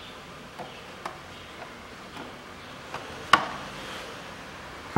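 Plastic engine cover of a Toyota Camry 2.5 being set on the engine and pressed onto its mounts: several light plastic knocks, then one sharp snap about three seconds in.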